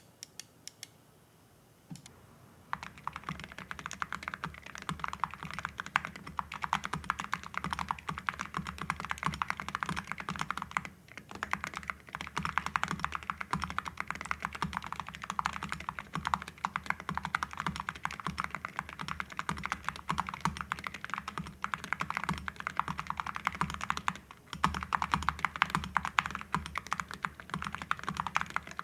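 Typing on a mechanical keyboard fitted with full-metal cupronickel keycaps (Awekeys), a fast run of keystrokes with a deep, muted thock. The typing starts about two and a half seconds in, with brief pauses about eleven and twenty-four seconds in.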